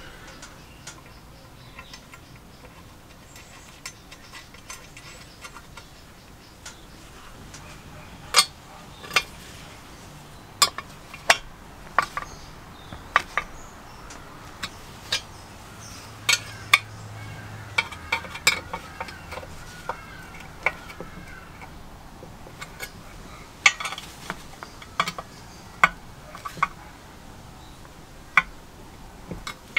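Cast-iron Bee-Tee Whirlwind forge blower being handled and worked on: irregular sharp metallic clicks and knocks as the housing is turned, set down and its screws worked with a screwdriver, more frequent from about eight seconds in.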